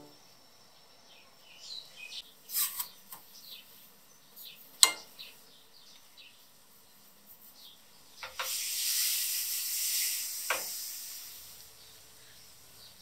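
Granulated sugar spooned into a dry aluminium saucepan: a few light taps and clicks of the spoon against the pot, then a hiss of sugar grains pouring in for about three seconds, with another tap near its end.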